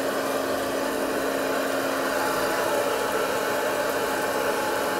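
Electric hot-air popcorn popper running: a steady whir of its fan with a constant hum, and no popping.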